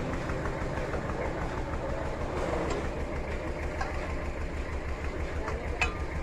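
An engine running steadily with a fast, even low throb. There is one sharp knock near the end.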